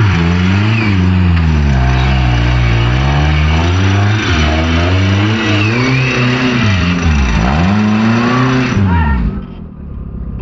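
Off-road vehicle's engine revving up and down over and over, then dropping away suddenly near the end.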